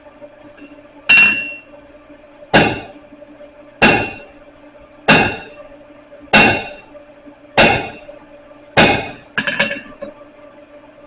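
Hammer blows on hot steel against an anvil, upsetting a bar: eight strikes about one and a quarter seconds apart, each with a brief metallic ring, the last one lighter and following closely after the one before.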